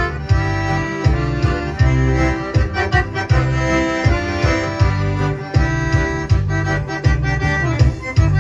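Accordion playing an instrumental passage over a steady bass beat.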